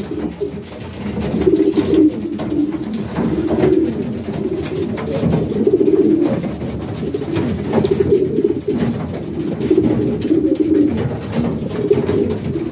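Racing pigeons cooing in the loft, many overlapping low coos one after another, the courtship cooing of birds just paired up.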